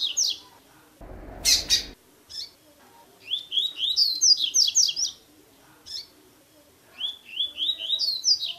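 Double-collared seedeater (coleiro) singing its 'tui tui' song, the type used to teach captive birds: two phrases of quick rising whistled notes, plus a few single notes. A short harsh, noisy burst about a second and a half in.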